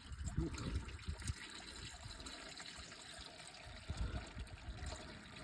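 Used engine oil draining from a 2015 Dodge Charger's oil pan in a steady stream, a faint trickle splashing into the drain pan.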